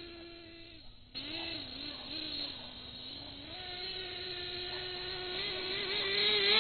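Radio-controlled off-road buggy's motor whining as it is driven, the pitch wavering up and down with the throttle. It cuts out briefly about a second in, then holds a higher, steadier pitch and grows louder near the end as the buggy comes closer.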